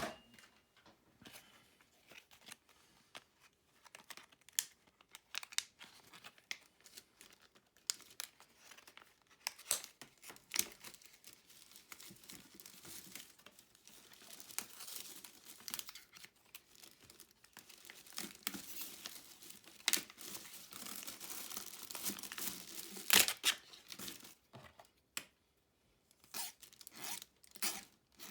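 Irregular rustling, scraping and clicking of small objects being handled, with a denser stretch of continuous rubbing or scraping in the middle.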